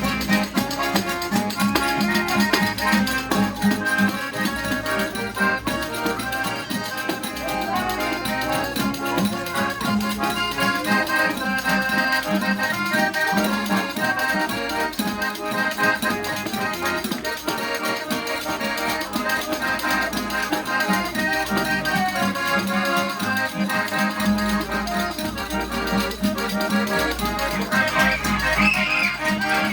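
Accordion (gaita) playing a vaneirão, a fast southern Brazilian dance tune, many notes sounding together without a pause.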